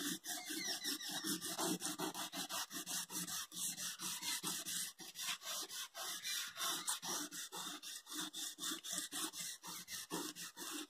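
Aluminium foil wetted with water scrubbed back and forth over a car's chrome tail-light trim to lift rust: quick, even rubbing strokes, several a second.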